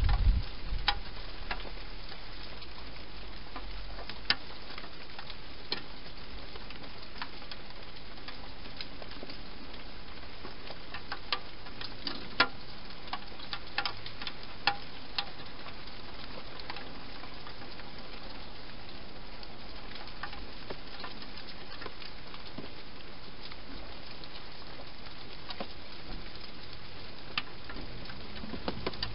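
A wild hedgehog in a clear plastic feeding box making scattered sharp clicks and crackles as it crunches food and moves against the plastic, over a steady hiss. A few low thumps right at the start.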